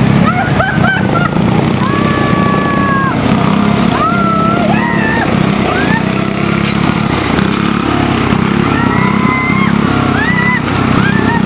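Riding lawn mower engine running steadily, with repeated short high squeaky calls over it, several sliding in pitch and a couple held for about a second.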